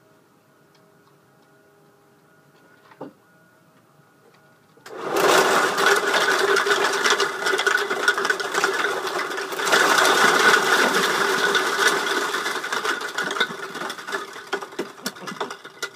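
A load of plastic bottles tumbling out of an overhead cubicle cabinet in a sudden dense clatter, starting about five seconds in. It surges again around ten seconds and thins to scattered knocks near the end.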